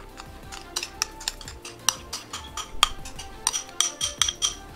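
Metal spoon clinking and scraping against the rim of a glass bowl as thick slime is scraped out into a glass container: an irregular run of light, ringing clinks, densest in the second half. Background music plays underneath.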